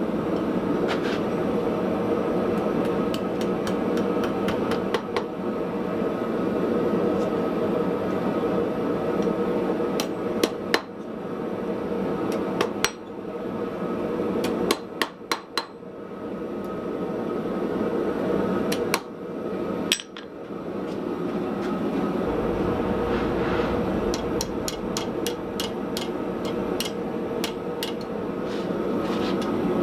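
Hand hammer striking hot steel on a small Austrian/German pattern anvil, in runs of quick blows separated by short pauses, over a steady rushing noise.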